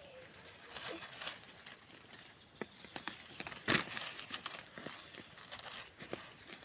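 Irregular rustling and crackling of forest undergrowth, with scattered twig-like snaps, as someone moves through leaves and plants.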